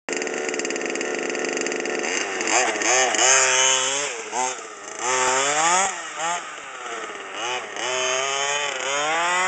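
Redcat Rally 1/5-scale RC car's gasoline two-stroke engine with a tuned pipe, idling steadily, then revving up and down over and over from about two seconds in as the car is driven.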